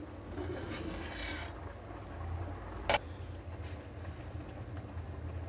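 Steady low hum around a covered aluminium pot of boiling macaroni on the stove, with one sharp metallic clank about three seconds in as the pot is opened and a metal spoon goes in to check the pasta.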